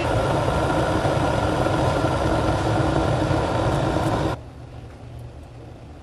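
Electric gooseneck kettle heating water toward its 205°F setting: a steady rumbling hiss of water near the boil, which cuts off suddenly about four seconds in, leaving only a faint low hum.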